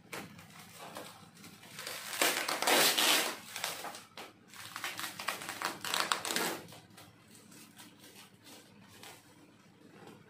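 Plastic parcel wrapping being slit with a utility knife and handled: crinkling and crackling plastic with small clicks, loudest in two spells about two and six seconds in.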